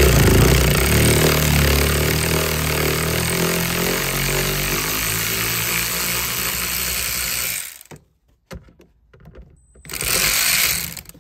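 Power tool spinning a socket on a long extension, backing out a front-seat mounting bolt held with thread-locker. It runs steadily for about eight seconds and stops suddenly, then runs again in a short burst near the end.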